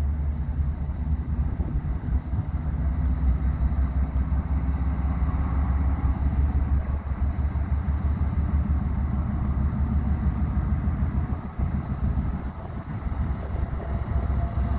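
Diesel engine of a GE ES44AC freight locomotive running under power, a steady, loud low rumble.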